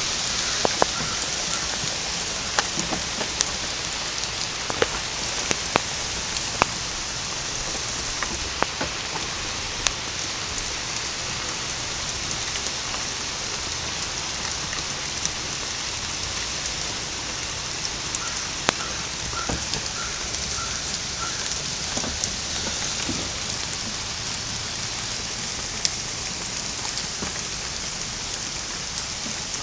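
Steady rain falling, an even hiss, with occasional louder individual drops clicking close by.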